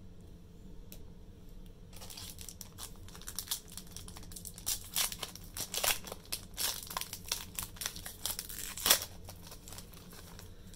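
Foil wrapper of a Pokémon booster pack being crinkled and torn open: a quick run of crackles and rips starting about two seconds in, with the loudest rip near the end.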